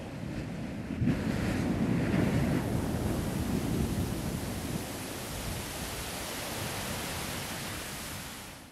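Shallow sea surf washing over sand, with wind buffeting the microphone: a steady rush that swells about a second in, eases after the middle and cuts off at the end.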